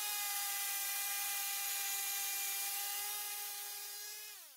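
Small chainsaw running at a steady high speed while milling along a log with a wooden beam guide, played back at double speed. Its pitch drops about four seconds in and the sound cuts off abruptly.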